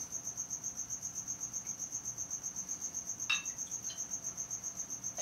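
An insect trilling steadily in a rapid, even, high-pitched pulse. About three seconds in, a bottle clinks once against a glass.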